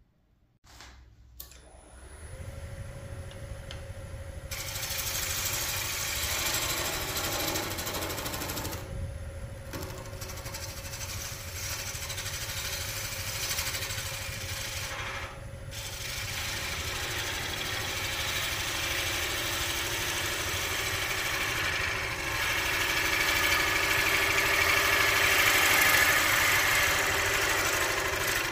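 Wood lathe starting up about two seconds in and then running with a steady motor hum, while a gouge cuts the spinning wooden scoop blank with a steady hiss of shavings. The cut stops briefly twice as the tool lifts off, and is loudest near the end.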